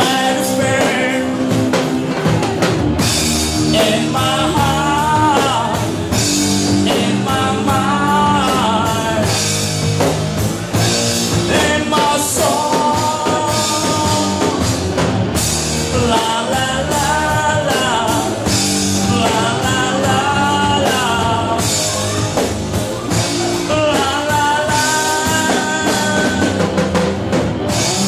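Live rock band playing: drum kit and electric guitars under a singing voice that comes in phrases.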